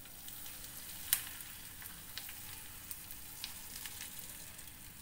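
Hot oil tempered with mustard seeds and chilli powder sizzling faintly as it is poured over chopped raw mango, with scattered small crackles and one sharper pop about a second in.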